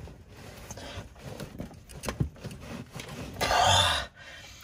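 Ratchet and socket, levered with a flashlight as a cheater bar, working a rusted brake caliper bracket bolt: scattered sharp clicks and scraping. A loud rushing burst lasting under a second comes about three and a half seconds in.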